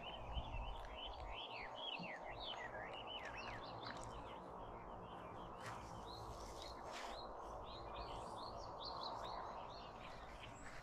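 A songbird singing a fast, continuous string of short chirping notes, busiest in the first few seconds, over a steady low outdoor background noise.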